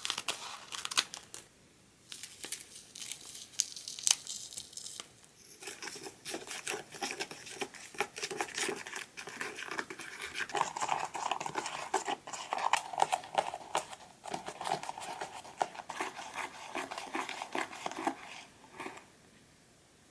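Crinkling and tearing of the Popin' Cookin candy-kit's plastic and paper packaging, handled close to the microphone in dense crackly runs with two short pauses.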